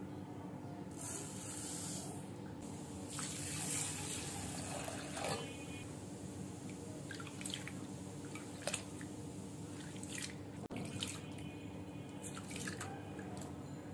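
Rice and red lentils being washed by hand in a glass bowl of water. There is pouring in the first few seconds, then a hand swishing the grains with short, scattered splashes, rinsing them before cooking.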